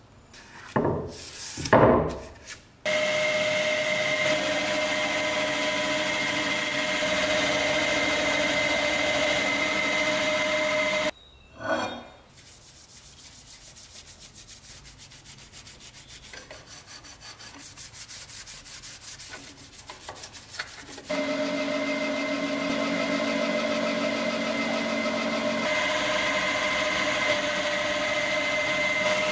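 A small electric power tool running steadily with a fixed whine in two long runs, stopping about 11 s in and starting again about 21 s in. Between the runs comes a quieter stretch of rhythmic rubbing or scraping that grows a little louder.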